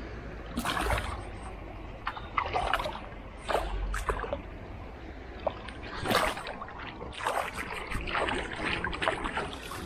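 Water splashing and sloshing in irregular bursts, each under a second, over a steady background of moving water.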